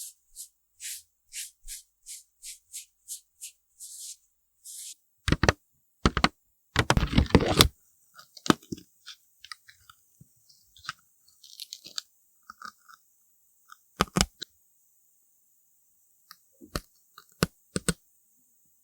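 Close-up ASMR makeup-application sounds: quick, hissy brush swipes about twice a second, then a few loud crinkling, crunching bursts about five to eight seconds in, followed by scattered sharp taps and clicks of tools and cases being handled.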